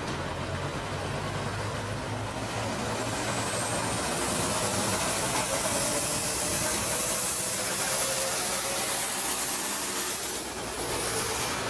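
City street traffic. A transit bus's engine rumbles low for the first couple of seconds as it pulls away, then a steady rushing hiss of traffic takes over and grows a little louder.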